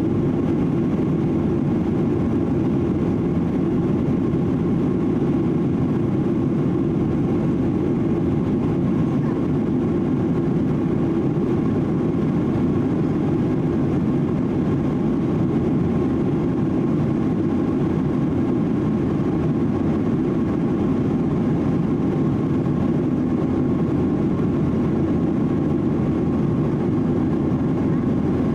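Steady in-flight cabin noise of a Boeing 737-800: the drone of its CFM56 turbofan engines mixed with rushing airflow over the fuselage, low and unchanging, with faint steady tones above it.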